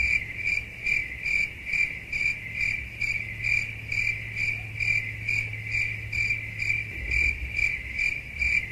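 Cricket chirping sound effect: an even, high chirp repeating about three times a second, the stock 'awkward silence' gag.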